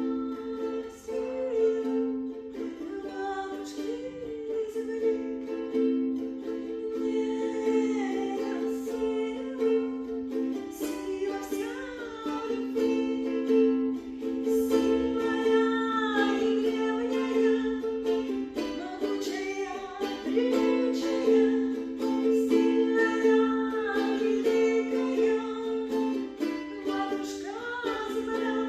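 Ukulele strumming steady chords while a voice sings a wordless melody that glides and bends over them.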